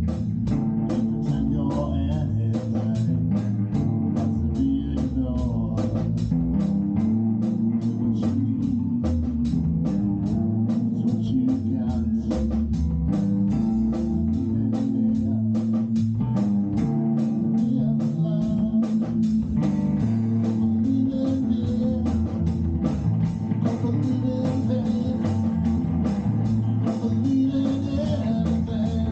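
Live band music: electric guitar and bass over drums with a steady beat.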